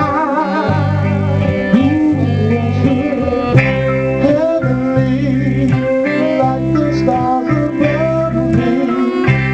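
Live band playing: singers over electric guitars and bass guitar, with steady held bass notes under the singing.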